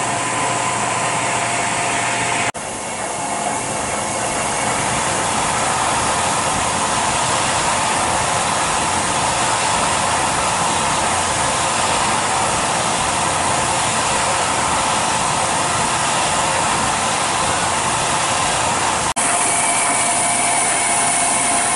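CNC mill running a cutting program, the spindle and cutter making a steady whir as it machines holes into a board for collet holders. The sound drops out abruptly and briefly twice, about two and a half seconds in and near the end.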